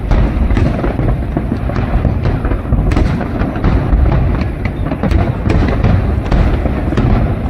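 Fireworks display going off loudly: a dense, continuous run of shell bursts, many sharp cracks over an unbroken low rumble.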